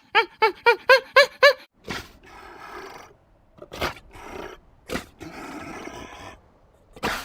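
An animal calling: a quick run of short, high, rise-and-fall calls for the first second and a half, then several rough, rasping growls.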